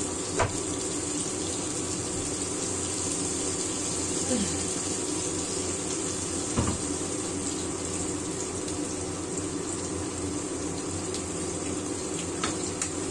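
Chopped shallots, garlic, chilli and tomato sizzling steadily in oil and sweet soy sauce in a wok, with a couple of light knocks near the start and about six and a half seconds in.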